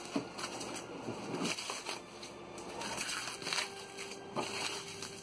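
Plastic bubble wrap rustling and crinkling as it is pulled off and handled by hand, with a few sharp crackles.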